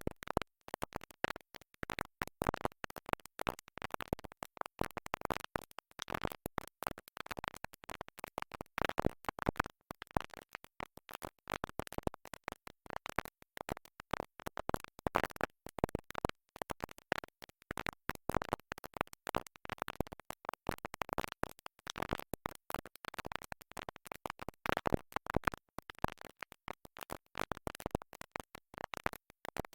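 A vinyl record stuck in its groove, the needle skipping and repeating a short scratchy fragment of music over and over in a rapid, choppy stutter.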